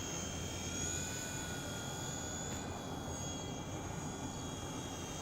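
WLtoys V911 mini RC helicopter in flight: its small electric motors and rotors give a steady high whine of several tones that drift slightly in pitch.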